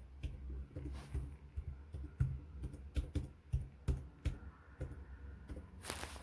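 Irregular small taps and clicks, a few each second with soft thuds beneath, and a brief rustle near the end.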